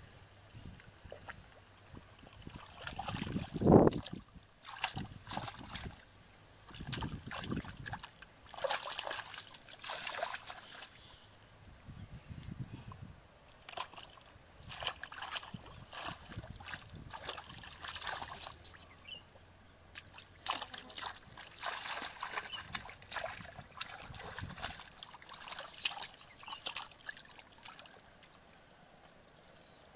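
Hands splashing and sloshing through shallow muddy rice-field water while feeling for fish, in irregular bursts, with one louder thump about four seconds in.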